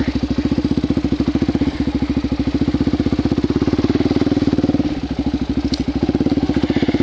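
Suzuki DR-Z400SM's single-cylinder four-stroke engine, its exhaust fitted with a silencer insert, running at low, fairly steady revs as the bike picks its way along a tight trail, easing off briefly about five seconds in.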